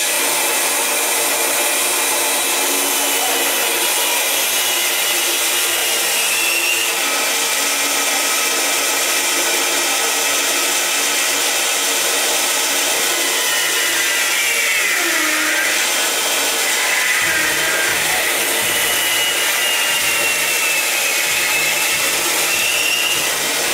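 Band saw running and cutting through the rubber recoil pad on a wooden rifle stock, trimming off its overhang. A steady loud noise with a faint whine that drifts up and down in pitch as the blade works along the pad.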